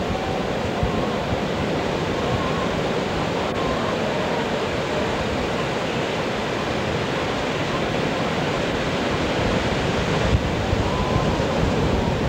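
Ocean surf breaking and washing in, a steady rushing noise, with wind on the camcorder microphone that gusts harder near the end.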